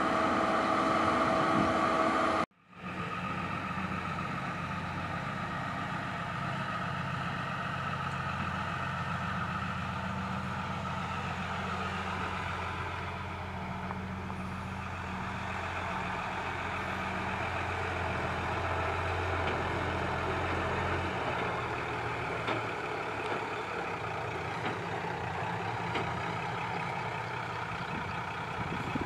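Heavy diesel machinery running: a Komatsu PC130 excavator at work with a six-wheel dump truck close by. A high steady whine over the engine stops abruptly about two and a half seconds in. After that a steadier low engine drone carries on, with a few faint knocks near the end.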